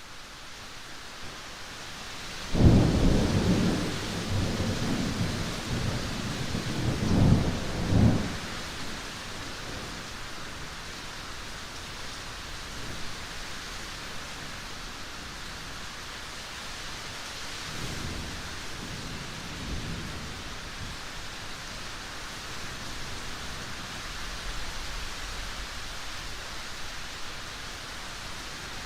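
Steady rain hissing, with a sudden loud clap of thunder about two and a half seconds in that rolls on with two more cracks for about six seconds. Fainter, distant thunder rumbles briefly again later.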